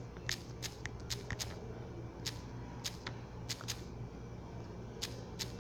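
Irregular clicks, a few a second with a gap in the middle, like taps on a phone's keyboard while a message is typed, over a steady low hum.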